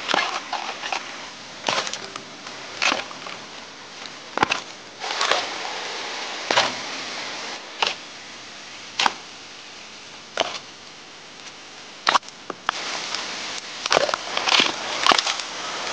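Fresh bamboo shoots being bent and snapped off by hand: a series of sharp cracks and crunches as the fibrous shoots break, some in quick clusters, over a steady hiss.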